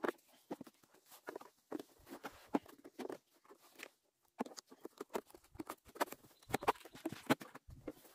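Woven plastic sack crinkling and rustling as it is pulled tight and tied down with rubber straps, a run of irregular small crackles and taps with a brief pause about halfway through.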